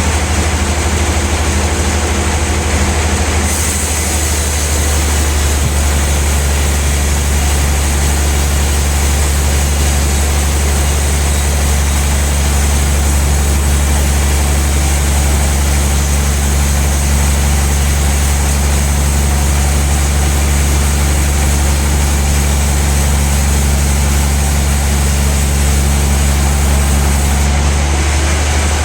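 Large log bandsaw running steadily with a deep hum. A higher hiss joins a few seconds in and drops away near the end.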